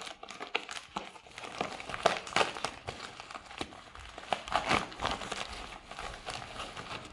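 Plastic packaging crinkling and crackling in irregular handling noises as a GPU waterblock is unwrapped and lifted out of its box.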